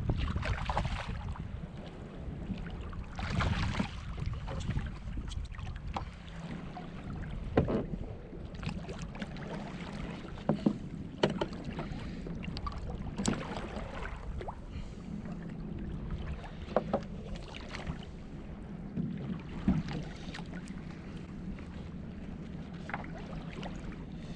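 Wind on the microphone and water sloshing against a plastic fishing kayak's hull on choppy sea. Two louder washes come in the first few seconds, and scattered sharp knocks and clicks follow.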